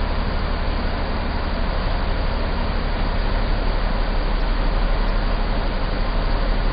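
Ship's deck crane machinery running steadily as the crane slews with its grab bucket: a constant low hum under an even hiss.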